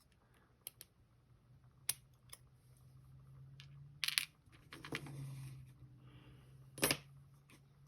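Small metal clicks and taps of tools prying the C-clip off the back of an M&C Matrix lock cylinder, irregular, with a cluster of clicks about four seconds in and a sharp snap about seven seconds in.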